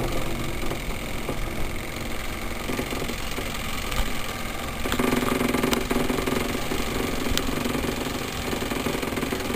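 A steady mechanical running noise, a low rumble and hum, which grows a little louder and fuller about five seconds in.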